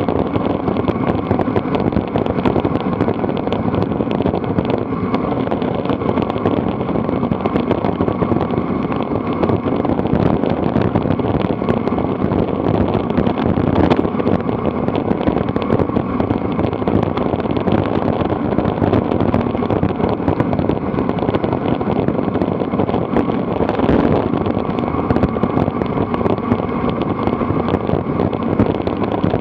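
Wind rushing over a bike-mounted camera's microphone during a fast bicycle descent: a steady, loud noise with constant crackling buffets.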